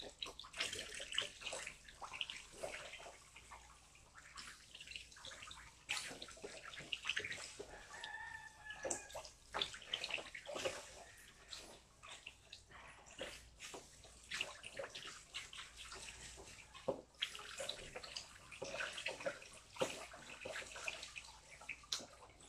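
Water splashing and pouring as a beagle is rinsed by hand over a basin, in irregular splashes and trickles.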